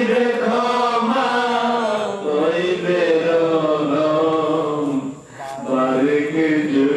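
A man's voice chanting in long, held melodic phrases, with a short pause for breath about five seconds in.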